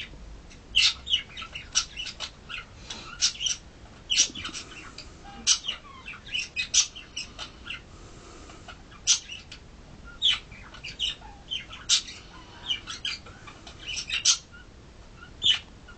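Rapid high-pitched chirps and squeaks from a small animal, several a second in uneven clusters.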